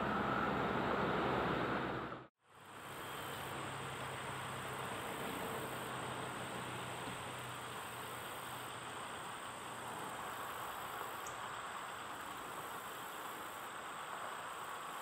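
Outdoor ambience: a steady wash of noise with a thin, high, steady insect drone. The sound drops out to silence for a moment about two seconds in.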